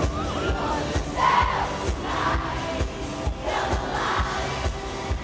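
Live pop concert recorded from within the audience: a female singer sings into a microphone over a band with a steady drum beat, with the crowd singing along and cheering.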